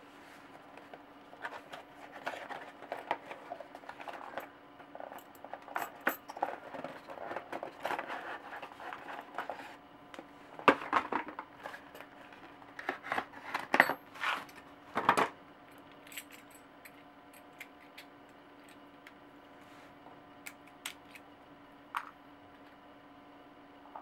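Handling a bicycle cassette: cardboard packaging rustling, then the loose steel sprockets clinking and jangling against each other, with a run of sharper metallic clicks about halfway through. After that come only occasional single ticks over a faint steady hum.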